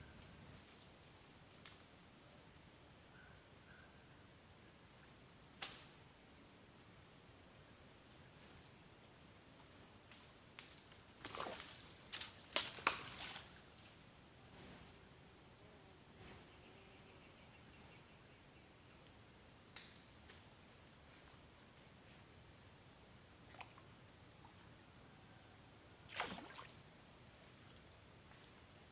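Steady high-pitched insect chorus, swelling in a pulse every second or two for a stretch. Scattered short knocks and splashes break through, the loudest a cluster about 11 to 15 seconds in and one near the end.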